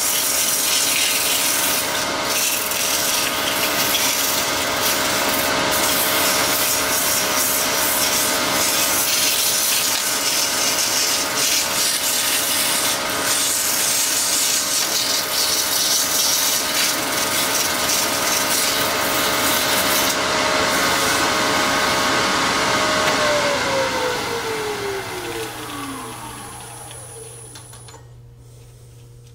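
Turning tool cutting a cast Alumilite resin blank spinning on a lathe: a steady scraping rasp over the whine of the lathe. Near the end the cutting stops and the lathe's whine falls in pitch and fades as it spins down.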